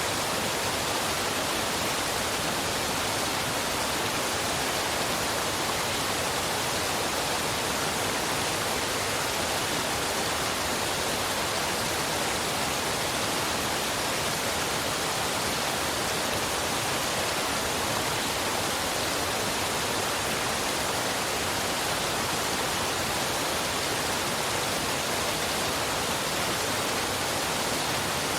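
Waterfall and river water rushing: a steady, unchanging wash of noise.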